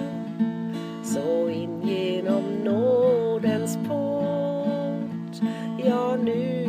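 A woman singing a slow hymn in Swedish to a strummed acoustic guitar. The guitar keeps a steady strum, and her voice comes in over it for a sung line about a second in and again near the end.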